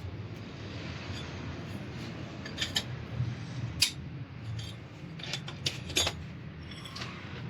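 Scattered light metallic clinks and rubbing of hand tools and small metal parts being handled, over a steady low hum.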